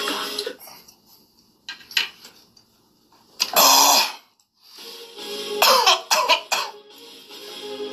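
A man coughing hard, choking on the vinegar from eating soba soaked in it: one loud cough about three and a half seconds in, then a rapid string of coughs around six seconds.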